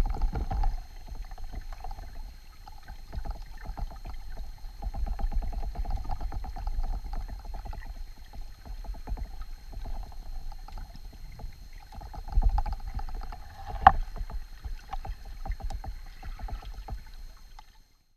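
Water moving around a submerged camera near a drainage outflow: a continuous low rumble with crackling and a steady hum. There is a sharp knock about fourteen seconds in, and the sound cuts off suddenly near the end.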